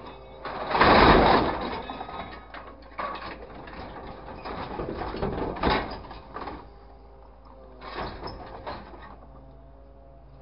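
Scrap metal clattering and scraping as a grapple truck's claw drops and works it into a container, in several noisy bursts, the loudest about a second in. A faint steady hum between the bursts.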